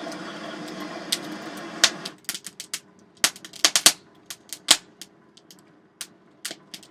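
Hand-cranked Canedy-Otto forge blower whirring for about two seconds, then stopping. After that, irregular sharp pops and crackles from damp kindling wood burning in the coal forge.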